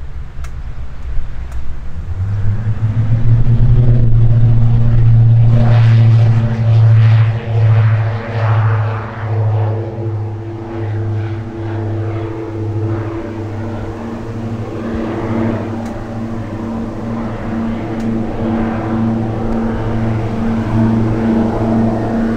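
Diamond DA-42 Twin Star's two propeller engines at takeoff power on the takeoff run and climb-out. A deep propeller drone builds about two seconds in and is loudest around five seconds. It then throbs regularly and eases off as the aircraft climbs away.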